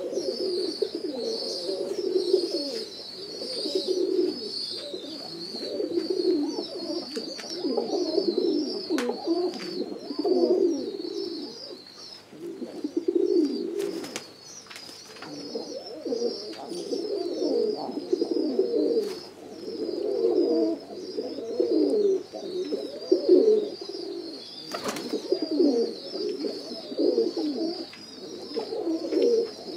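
A flock of domestic pigeons cooing over and over, the calls overlapping in pulses a second or so apart, with a constant high twittering above them and a few sharp clicks.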